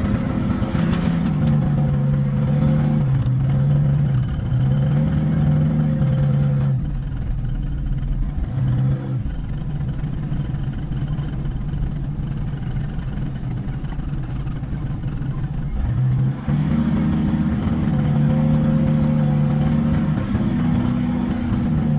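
Engine running steadily, at higher revs for the first seven seconds and again from about sixteen seconds in, and at lower revs in between.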